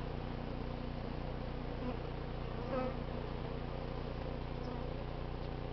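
Steady hum of a large mass of feral honey bees, a colony disturbed during a cut-out from a barbecue grill. A brief louder buzz comes about three seconds in.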